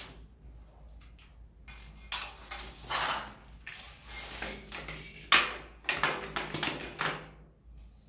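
Flexible stainless-steel shower hose rattling and scraping in several bursts as it is handled, with the sharpest metallic clack about five seconds in.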